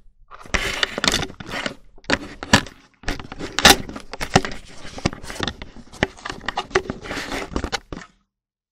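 Handling noise from a handheld camera being moved about and set down: rustling and scraping with sharp knocks. It cuts off abruptly about eight seconds in.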